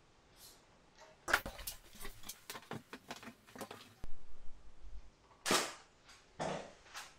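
Camera gear on a tripod being handled: a quick run of clicks and knocks, then a low rumble, two brief brushing rustles and a last click near the end.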